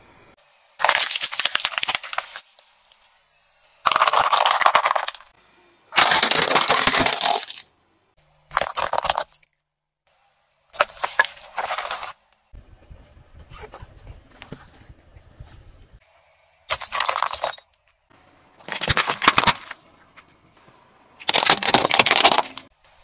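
Objects such as plastic toys and a can of water beads being crushed under a car tyre: about eight separate bursts of cracking and crunching, each lasting about a second, with silent gaps between them.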